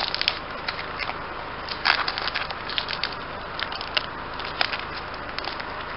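Foil booster-pack wrapper crinkling and crackling in the fingers as it is pinched and pulled at to tear it open, with many small irregular crackles. The pack is hard to get open.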